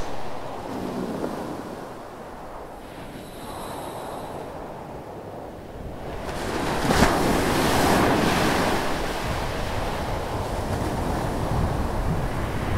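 Sea water washing, with wind noise on the microphone, swelling about six seconds in. A sharp click right at the start, from a plastic buckle on a diving vest snapping shut.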